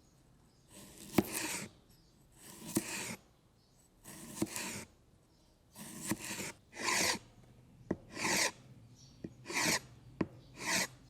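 Steel cleaver blade scraped in about eight separate rasping strokes, each often starting with a sharp click, the strokes coming quicker in the second half.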